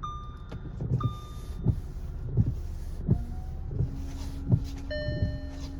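Windshield wipers driven by a newly installed wiper motor sweeping back and forth across the glass, with a thump at each reversal about every 0.7 s, over a steady low hum. Dashboard chimes sound at the start and again from about five seconds in.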